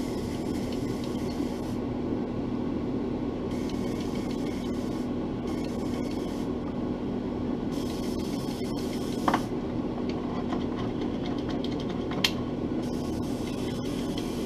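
Steady motor hum from the spray-booth setup, with the airbrush hissing air in several on-off spells and two light clicks about nine and twelve seconds in.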